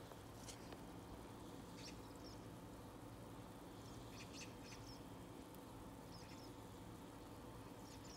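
Faint outdoor ambience: a steady low hum with short, high chirps of small birds scattered through, about half a dozen times.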